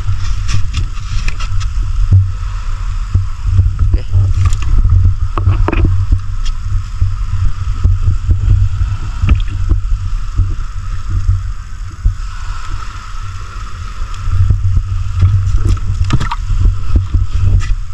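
A boat's engine running steadily with a low rumble, with scattered knocks and wet slaps as fish are handled in the wet fish hold.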